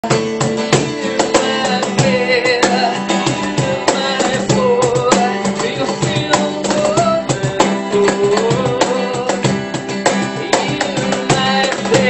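Acoustic guitar strummed in steady chords, with hand percussion striking a quick beat and a male voice singing a melody over them.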